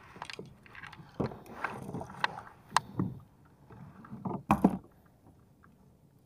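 Irregular clicks, knocks and thumps of fishing tackle and pliers against a plastic kayak hull while a small barracuda is pulled alongside and gripped with fishing pliers. The loudest is a dull thump about four and a half seconds in.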